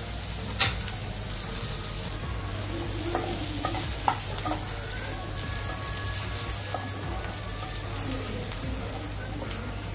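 Sliced onions sizzling in oil in a frying pan, stirred with a wooden spatula. The spatula scrapes and knocks against the pan, with sharp knocks about half a second in and about four seconds in.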